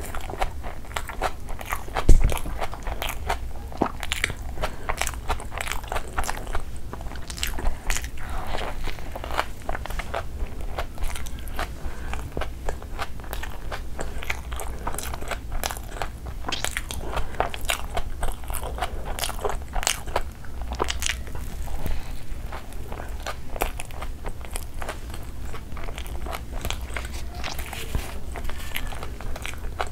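Close-miked chewing of a mouthful of burger: a dense run of wet clicks and soft crunches as the bun and patty are chewed, with one loud thump about two seconds in.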